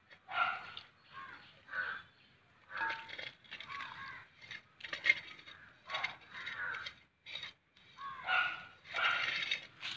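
Birds calling over and over in short separate calls throughout.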